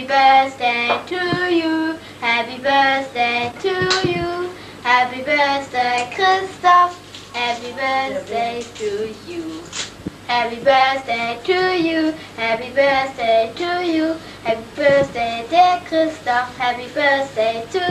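A young girl singing a song alone, without accompaniment, in phrases of held notes broken by short breaths.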